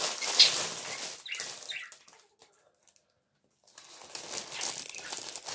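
Plastic bread bag crinkling as a loaf is handled, falling silent for about a second and a half midway, then more rustling with a knife sawing through the bread crust.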